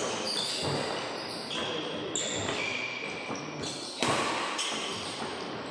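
Badminton doubles rally on a wooden court: sports shoes squeaking and feet thudding as the players move, with sharp racket strikes on the shuttlecock, one at the start and a louder one about four seconds in.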